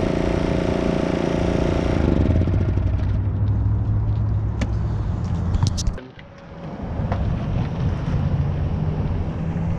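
Honda EM650 generator engine running steadily after its recoil starter was repaired. The running note changes about two seconds in. The sound drops away sharply about six seconds in and builds back up over the next two seconds, with a few sharp clicks along the way.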